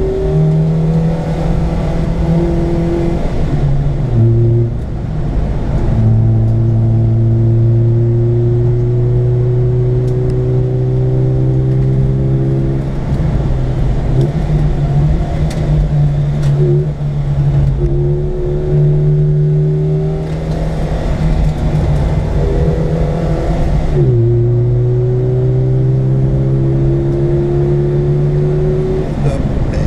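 Peugeot 305 GT's four-cylinder engine heard from inside the cabin under hard acceleration. Its pitch climbs steadily and drops back at each gear change several times, then falls away near the end.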